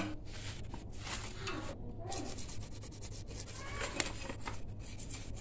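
A small brush scrubbing thinner-softened paint off a Yamaha RX-King engine cover, in a run of short, uneven rubbing strokes as the paint is stripped. There is a single sharp tap about four seconds in.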